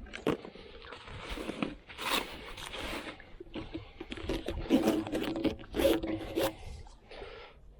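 Scraping and rubbing in irregular bursts as the parts of an inflatable PVC boat are handled during assembly, with a faint squeak held for a second or two near the middle.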